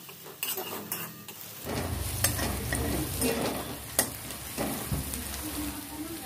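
Sliced onions and chopped garlic frying in oil in a metal kadai, sizzling steadily while a steel spatula stirs and scrapes them. The spatula clicks sharply against the pan several times.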